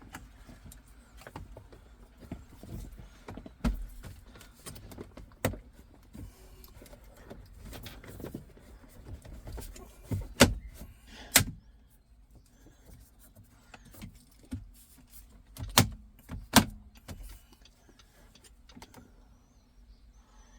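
Irregular clicks, knocks and small rattles of hand work on a car's interior trim and parts, with a few sharp snaps around the middle.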